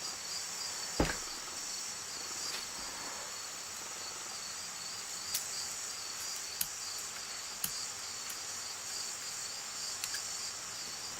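Steady, rapid chirping of crickets, with a handful of small sharp clicks of metal lock pins and parts being handled, the loudest about a second in.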